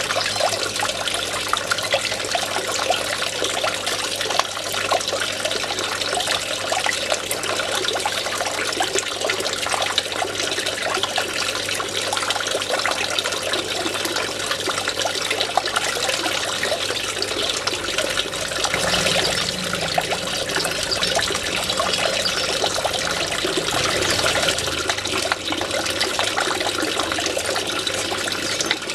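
Water trickling and splashing steadily as it spills over the edge of a small stone fountain basin.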